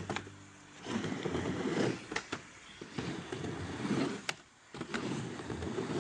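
Skateboard wheels rolling on a mini ramp in several passes, with sharp clacks of the board and trucks hitting the ramp and coping. The loudest clack is a little past four seconds in.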